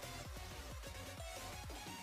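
Background electronic music with a steady beat of deep bass hits that drop in pitch, over held tones.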